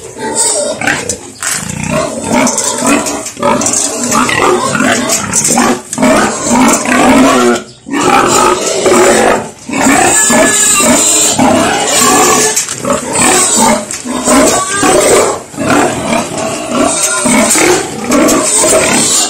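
A pregnant sow squealing loudly, almost without a break, excited as she waits for her feed.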